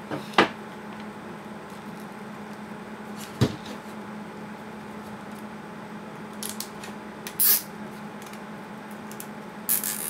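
Plastic zip tie being fastened around a bundle of power-supply wires: a couple of sharp clicks as it is handled, then short high rasping bursts in the second half as the tie is pulled through its ratchet. A low steady hum runs underneath.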